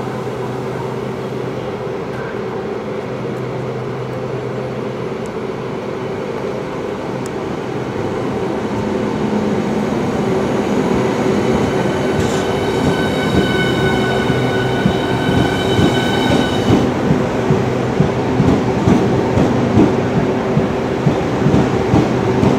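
Hitachi Class 395 Javelin electric multiple unit pulling away and passing close by, with a steady electric hum from its traction equipment. A set of high inverter whine tones sounds from about halfway to three-quarters of the way through, then stops. The sound grows louder as the carriages run past faster, with uneven wheel-and-rail knocks in the second half.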